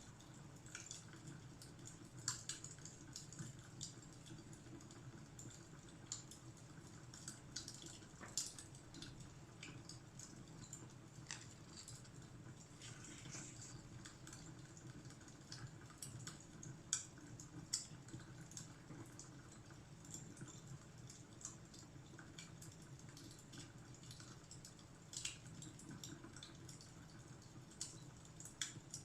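Wood fire crackling softly in a fireplace: irregular small pops and crackles over a low steady rumble.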